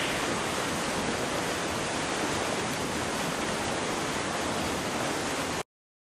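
Steady rush of heavy monsoon rain falling on rainforest canopy, cutting off abruptly near the end.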